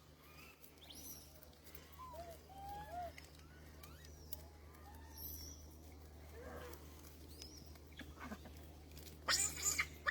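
Scattered short high squeaks and chirps from small animals, faint, over a steady low hum, with a louder rustling crackle near the end.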